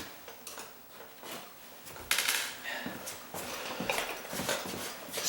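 Irregular light metal clicks and scrapes of a hand tool working the tab of a metal door strike plate, pressing the angled tab back into line. The sharpest click comes about two seconds in.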